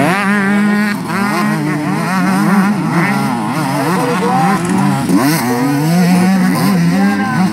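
Several two-stroke motocross bikes racing, their engines overlapping and repeatedly revving up and dropping back in pitch as the riders accelerate and shift.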